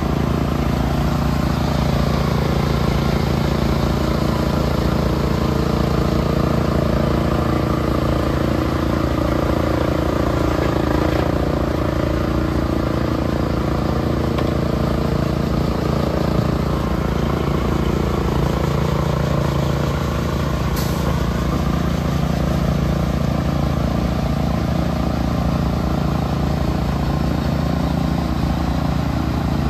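Concrete pump truck's engine running steadily at a constant speed.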